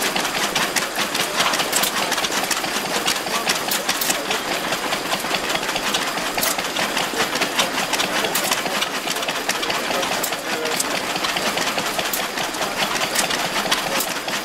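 Engine running with a fast, uneven mechanical clatter.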